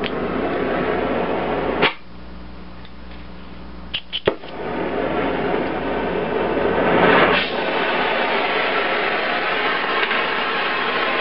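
Oxyacetylene torch flame hissing, then cut off with a sharp pop about two seconds in. After a quieter couple of seconds, a few quick clicks come as it is relit, and the flame hisses again, swelling around seven seconds in and then running steady.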